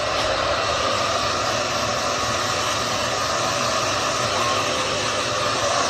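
Handheld electric hair dryer running steadily, its air blowing on a puppy's damp fur.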